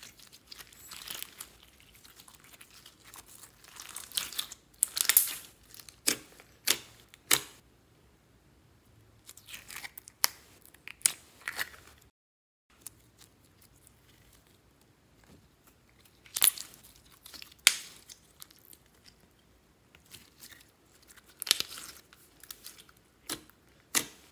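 Slime handled by hand: clear slime full of foam beads stretched and pulled, then layered with other slimes and pressed, giving irregular sharp sticky clicks and pops in clusters, with a short break just after the middle.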